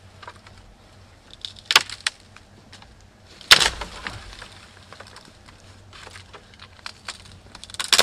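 Dry dead branches snapping and cracking as they are broken off a pile of brush, with twigs rustling in between. There is a pair of cracks about two seconds in, the loudest snap about three and a half seconds in, and another at the very end.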